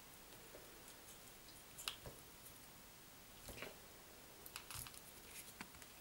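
Near silence with a few faint clicks and rustles of fingers handling thin stripped cable conductors, a little busier between about three and a half and five and a half seconds in.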